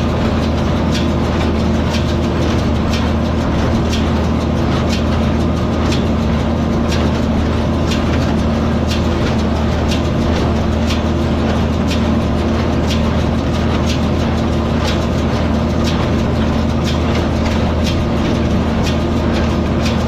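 Tractor engine running steadily while pulling a small square hay baler, with a sharp knock about once a second from the baler's plunger stroke.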